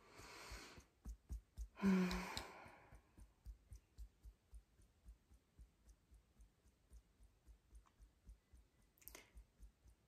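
EFT tapping: fingertips tap softly and steadily on an acupressure point, about three to four taps a second. There is a breath out at the start, a louder voiced sigh about two seconds in, and a short breath near the end.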